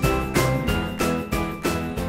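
Upbeat background music with a steady beat of about three strokes a second and bright, tinkling high notes.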